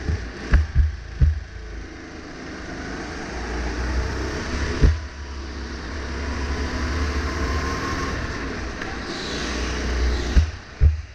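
A 270 cc two-seater go-kart engine running under throttle, heard onboard, building steadily in loudness over several seconds. Heavy low thumps hit the microphone near the start and again near the end.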